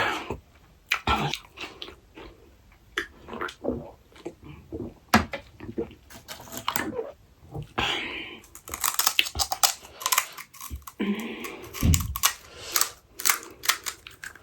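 Close-up chewing of pani puri: irregular crunches and crackles as the crisp puri shells break between the teeth, with softer chewing sounds in between.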